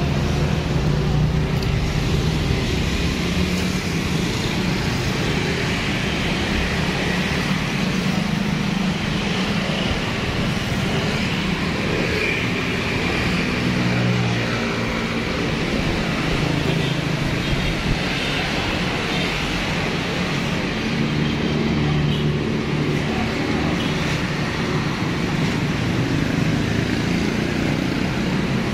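Road traffic noise, vehicle engines running steadily, with a coach passing near the start.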